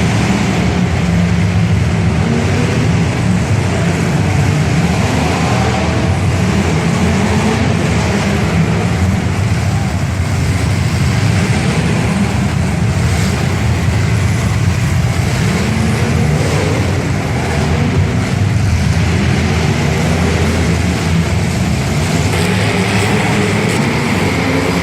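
Demolition derby car engines running and revving, loud and unbroken, their pitch rising and falling.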